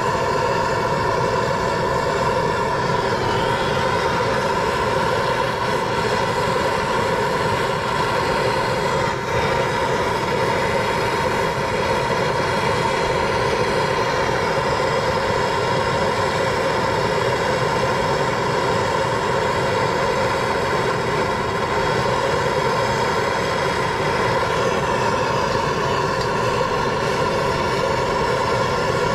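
MAP gas hand torch burning with a steady hiss. Its flame is on the steering knuckle around a stuck tie rod end's tapered stud, heating the metal so it expands and lets the taper drop out.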